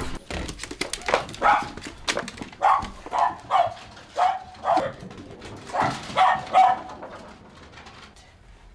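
Small dogs barking: a run of about ten short, sharp barks, fading out near the end.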